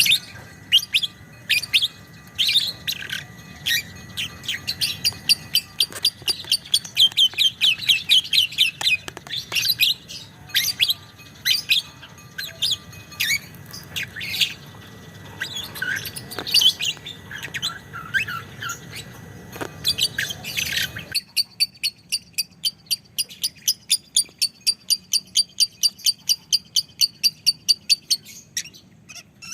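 Lovebird calling with sharp, high chirps and chatter. From about two-thirds of the way in comes a long, even run of rapid chips, about five a second: the long chattering trill called "ngekek panjang".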